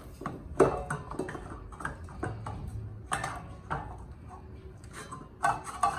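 Scattered clicks and knocks of a utensil against a dish or tray while stiff, unsoftened cream cheese is worked into jalapeño halves.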